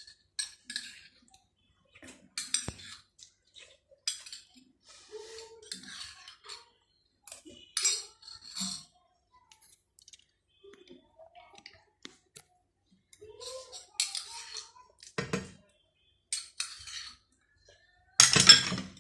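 Cutlery clinking and scraping on a plate at irregular intervals during a meal, with a louder clatter near the end.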